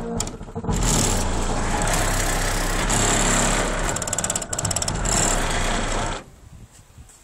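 Truck stereo playing loud bass through two 15-inch subwoofers, with a steady deep bass note under a harsh buzzing wash. It cuts off suddenly about six seconds in.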